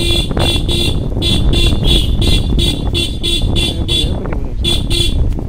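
Motorcycle horn tooted in rapid short beeps, about three a second, in three runs: about three, then about nine, then two. Underneath is the steady low rumble of the ride.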